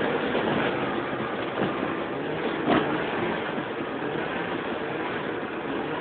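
Lynx GLX snowmobile engine running steadily while riding over snow, with one short knock about halfway through.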